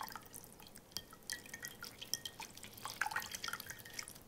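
Water dripping and trickling from blanched spinach leaves squeezed out by hand into a porcelain bowl: a quick, irregular patter of small drips and splashes.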